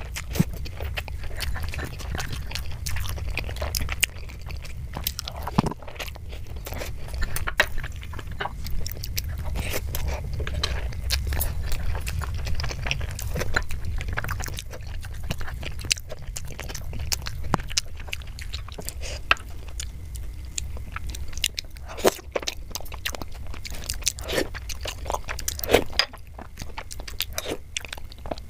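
Close-miked chewing and biting of soft, milky Indian sweets, with a metal spoon scraping and clicking against the bowls and plates, over a steady low hum.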